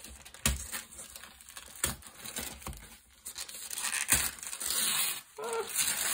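Thin paper wrapping rustling and crinkling as it is handled, turning into louder, denser rustling and tearing from about four seconds in as it is pulled open off a book.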